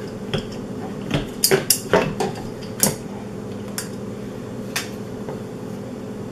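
Clicks and clacks of a hard plastic elliptical pedal and its screws being handled and knocked against the crank arm as the pedal is fitted. There are about ten separate sharp clicks, several in quick succession between one and three seconds in, then a couple more spaced out.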